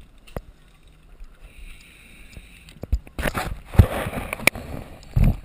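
Camera handling noise. After about three seconds of faint steady hiss, loud rustling and scraping sets in, broken by several sharp knocks.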